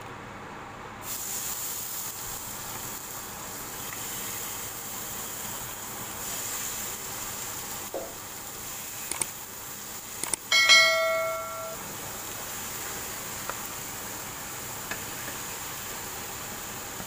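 Marinated chicken pieces sizzling in hot oil in a non-stick grill pan, the steady sizzle starting about a second in as the first piece goes down, with soft knocks as more pieces are laid in. A little past halfway a loud metallic clink rings for about a second.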